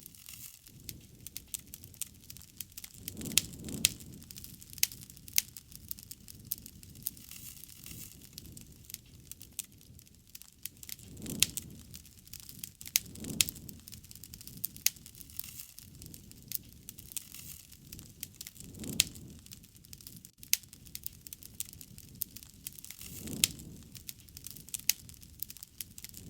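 Campfire crackling: a steady run of sharp pops and snaps from burning wood, with a few soft low whooshes of flame swelling up and dying down.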